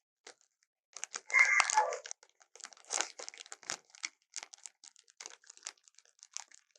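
A leopard feeding: irregular crunching, crackling and tearing at food, with a denser rasping burst about a second in.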